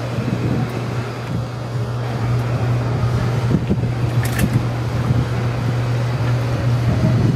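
A steady low machine hum, with a light click about four seconds in.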